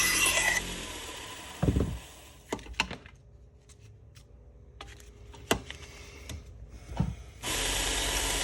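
Harbor Freight 1x30 belt sander grinding a knife blade with a steady whine, switched off under a second in and running down. Several sharp knocks and clicks follow as the blade and tools are handled, and the sander starts up again near the end.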